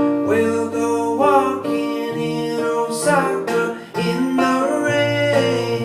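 Acoustic guitar playing the song's instrumental ending, with a steady run of plucked notes left ringing.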